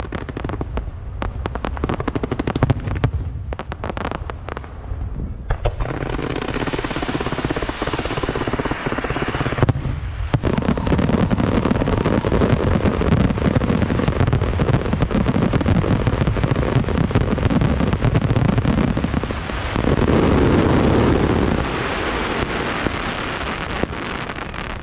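Fireworks: a rapid string of firecracker cracks for about the first five seconds, then a continuous loud hissing rush of wind-fire wheel (風火輪) fountain fireworks that swells about ten seconds in and again near the end.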